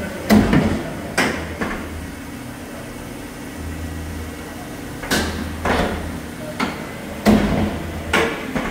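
Adast Maxima 115 paper guillotine running: a steady low motor hum with sharp mechanical clunks and knocks in clusters. A quieter stretch of a few seconds falls in the middle.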